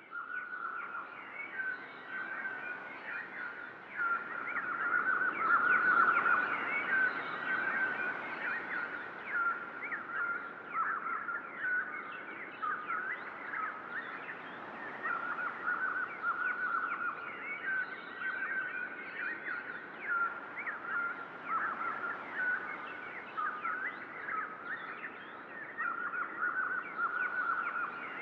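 A dense chorus of songbirds, many short overlapping chirps and calls over a steady high trill.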